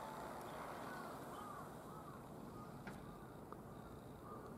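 Faint outdoor background noise with a run of short bird calls, each rising and then falling, and one brief click about three seconds in.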